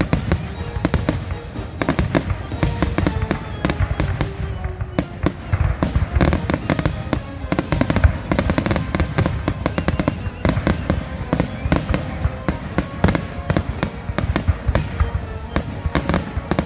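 Fireworks going off in rapid succession: a dense, irregular run of sharp cracks and pops over a low rumble, with music playing underneath.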